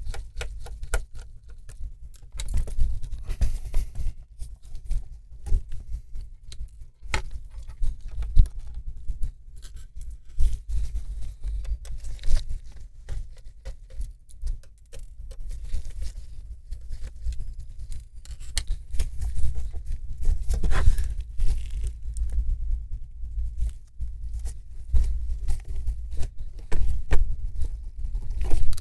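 Small screwdriver scraping, clicking and turning against a laptop's metal hinge and plastic casing, with irregular dull bumps as the laptop and screen are handled.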